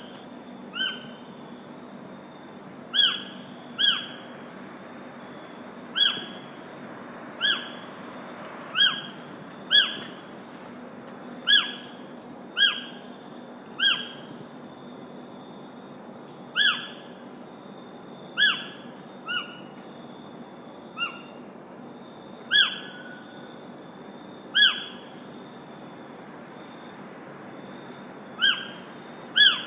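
A bird repeating a short, sharp call that slides downward in pitch, about every one to two seconds, over a steady background hiss.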